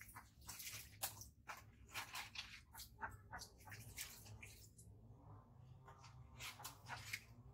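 Faint scattered clicks and soft rustles, irregular and close, over a low steady hum.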